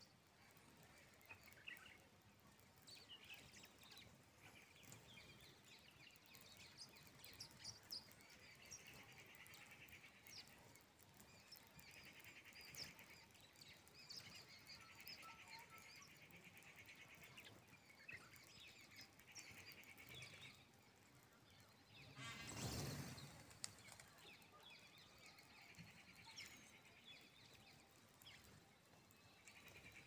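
Faint chirps and short trills of a flock of small birds foraging on the ground, with one brief louder fluttering burst about two-thirds of the way through.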